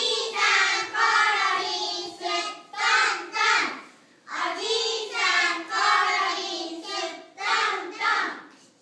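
A group of young children singing together, in two phrases with a short break about four seconds in.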